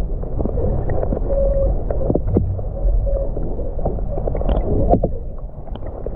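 Underwater sound picked up by a submerged camera: a steady, muffled low rumble of water with scattered small clicks and knocks and brief faint hums.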